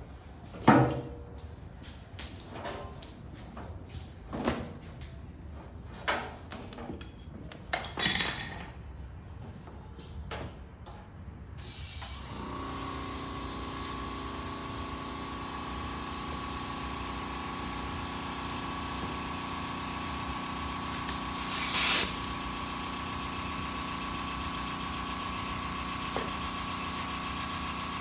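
A string of separate knocks and clunks, then an air compressor starts about twelve seconds in and runs steadily with a hum, for inflating a freshly remounted tractor tire. A short, loud hiss of air comes a little over twenty seconds in.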